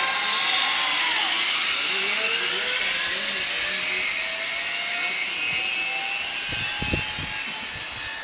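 Zip-line trolley running down the steel cable: a loud hissing whir with a faint whine that slowly rises in pitch as it gathers speed, fading toward the end.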